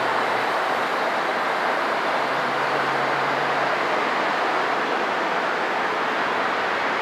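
Steady rushing background noise with no distinct events, with a faint low hum near the start and again from about two to four seconds in.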